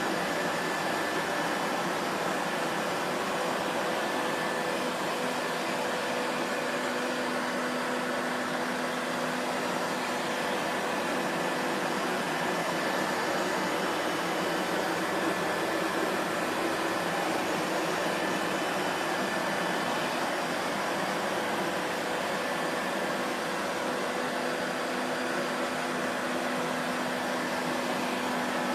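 Vacuum cleaner motor running steadily, a constant rushing whir with a faint hum of steady tones under it.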